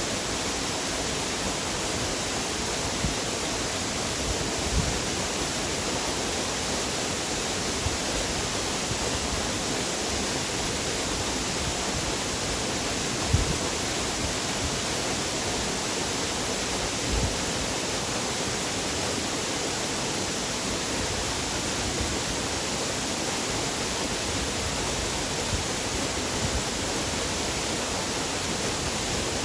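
Waterfall: a steady rush of falling water, with a few brief low bumps, the largest about halfway through.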